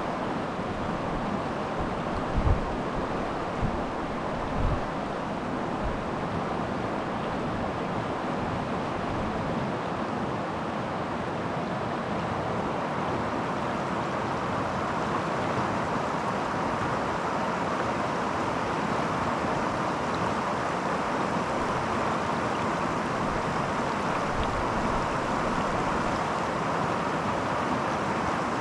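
Creek water flowing steadily, a constant rushing. In the first few seconds a few brief gusts of wind buffet the microphone.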